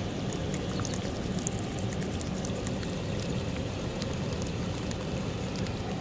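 Rooftop HVAC unit running just after being switched back on, with a steady rush of air being sucked in at the seams near the base corner of the unit over a low hum. This inward air leak is the sign the owner takes for the unit pulling in air, and maybe water, where it shouldn't.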